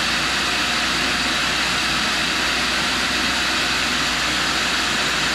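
Steady hiss of a shop vacuum hooked up to a tool and cutter grinder, running along with the grinder's spinning wheel, even and unbroken.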